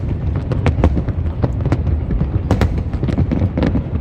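Aerial fireworks display: a quick, irregular run of sharp bangs and crackles, several a second, over a continuous low rumble.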